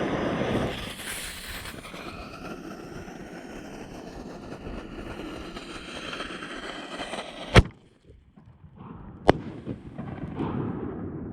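Canister firework shells firing at close range: a loud rushing, crackling din, then two sharp bangs less than two seconds apart in the second half.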